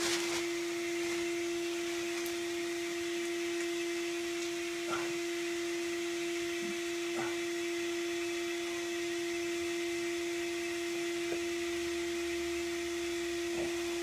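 A steady hum held at one pitch, with a few faint knocks.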